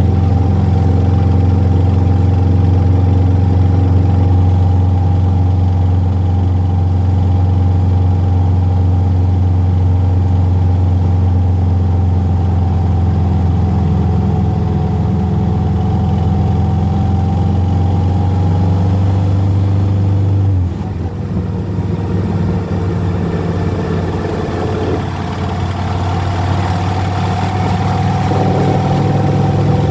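Motorcycle engine running steadily while riding, with a rush of wind. About two-thirds of the way through, the engine note drops suddenly, then steadies again at a new pitch.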